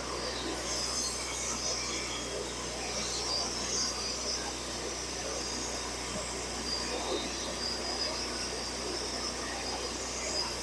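Gas-engine band sawmill running steadily, its blade cutting through a knotty pine log.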